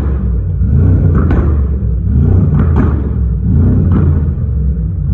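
Exhaust of a tuned Mercedes-AMG G 63's twin-turbo V8 running loudly, with a sharper burst about every second and a half.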